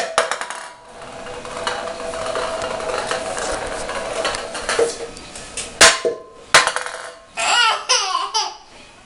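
Sharp knocks on a hard surface: one right at the start, then two more about six seconds in, a little over half a second apart. A faint steady hum runs under the first half, and a brief wavering call-like sound follows the knocks near the end.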